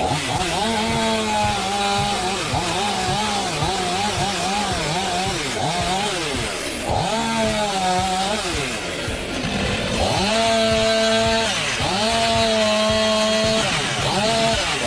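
Chainsaw engine running at high revs while cutting wood, its pitch repeatedly dropping and climbing again as the chain loads up in the cut, with longer steady full-throttle stretches in the second half.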